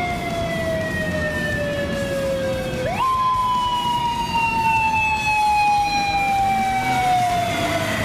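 Police motorcycle siren wailing: a single tone sliding slowly down in pitch, which about three seconds in jumps sharply back up and then slides slowly down again.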